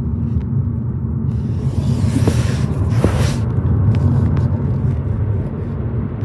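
Steady low rumble of a vehicle running, with a rush of hissing noise for about two seconds near the middle.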